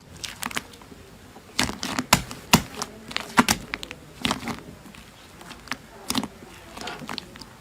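Slime being squeezed and poked by hand, giving irregular sticky pops and crackling clicks, a few louder pops a couple of seconds in.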